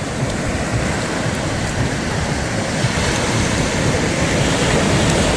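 Sea waves washing up on a beach shore, a steady rushing surf that swells a little louder near the end.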